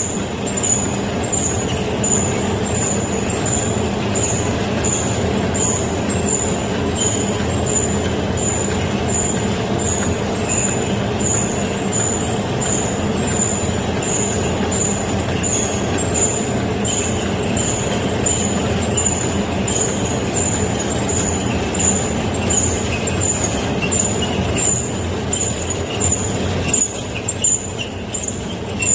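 Rice-cake forming machine for kkultteok and songpyeon running steadily, with a short high-pitched tick repeating about one and a half times a second as it cycles.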